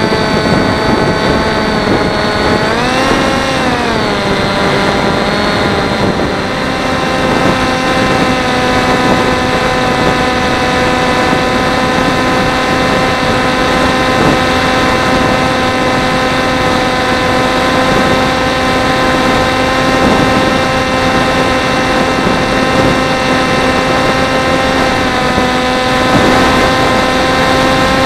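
Electric motor and propeller of a Teksumo flying wing, heard from its onboard camera as a steady whine over wind rush. About three seconds in the pitch rises and falls back with a throttle change, then holds steady.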